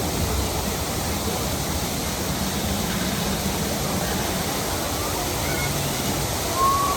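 Steady rush of falling water from a water feature, with a brief high chirp near the end.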